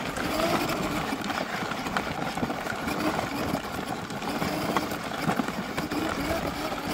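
Two-wheel walking tractor's single-cylinder diesel engine chugging steadily at low revs as it pulls a loaded trailer slowly over rough ground.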